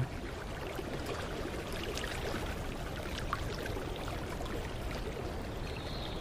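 A mountain creek running: a steady rush of water flowing over stones.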